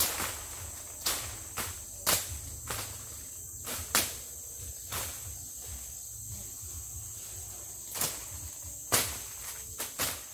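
Machete chopping brush and saplings: about a dozen sharp strikes at irregular spacing, roughly one a second, over a steady high drone of forest insects.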